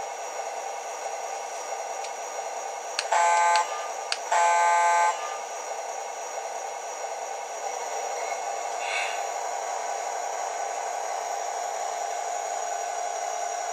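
Electronic diesel horn from an O gauge LionChief Plus Alco locomotive's onboard sound system: a short blast and then a longer one, buzzy and loud, over a steady running sound.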